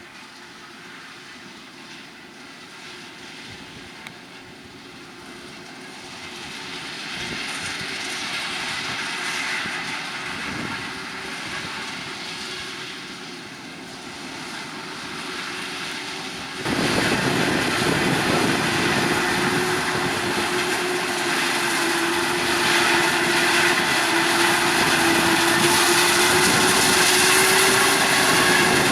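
Heavy farm machinery engines running during maize harvesting, growing louder over the first several seconds. About halfway through the sound jumps suddenly louder and a steady engine drone holds, rising slightly in pitch near the end.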